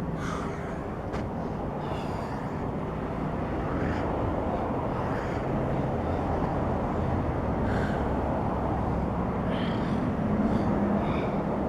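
Steady outdoor background noise, a low rumble and hiss, with a low hum that grows stronger about ten seconds in.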